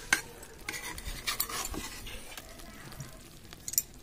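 A spatula stirring thick brinjal masala in an iron kadai, scraping through the curry with a few sharp clinks against the pan.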